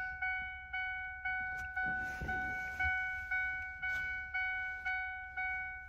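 A car's electronic warning chime dinging over and over at an even pace, about two dings a second. Each ding is a clear ringing tone that fades before the next.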